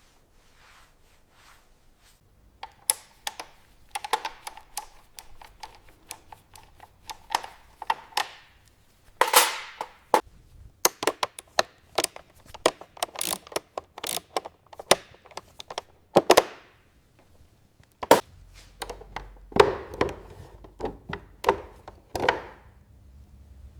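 A run of irregular sharp clicks and knocks from hard objects being handled, some ringing briefly, with short pauses about ten and seventeen seconds in.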